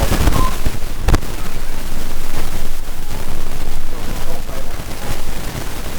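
Wind buffeting the microphone: a loud, rough rumble with a sharp thump about a second in.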